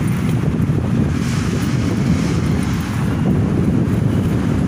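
Wind buffeting a phone's microphone: a steady, fluttering low rumble.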